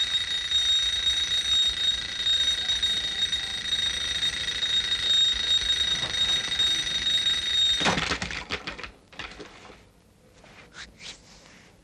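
Mechanical wind-up alarm clock ringing steadily at a high pitch, then cutting off suddenly about eight seconds in. A few light knocks follow.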